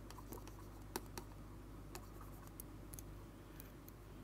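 Pen tapping and scratching on a writing tablet as someone writes: a scatter of faint, sharp clicks, the loudest about a second in, over a steady low hum.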